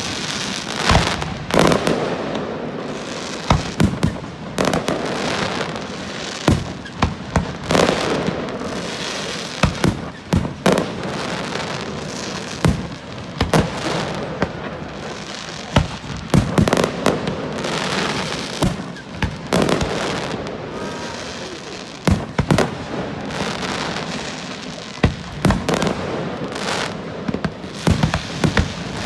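Fireworks display going off: a constant barrage of sharp bangs, several a second, over a continuous crackling hiss.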